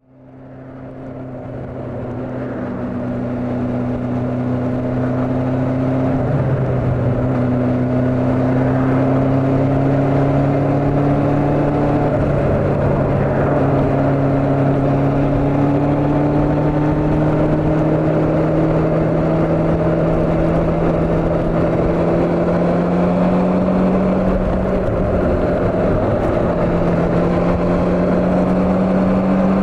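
Honda CB400 motorcycle engine running at cruising speed, its pitch climbing slowly with a few short breaks, over rushing wind noise. The sound fades in over the first few seconds.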